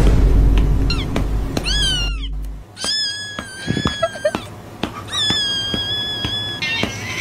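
Cat-meme sound clip of a kitten meowing: a few short rising-and-falling meows about a second in, then two long, held screaming meows, the second starting about halfway through.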